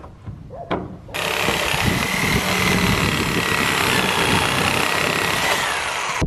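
Reciprocating saw cutting off the end of a 2x4 board: the saw runs steadily for about five seconds with a steady whine over the rasp of the blade in the wood, then stops suddenly. A couple of light knocks come just before it starts.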